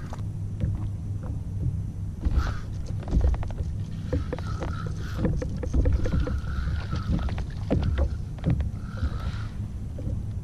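A steady low hum on a small fishing boat, with frequent short knocks and clicks of handling on the boat.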